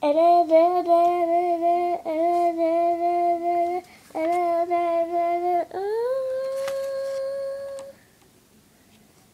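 A child singing a short theme on long held notes: several notes on one pitch with short breaks, then a slide up to a higher note held for about two seconds before stopping.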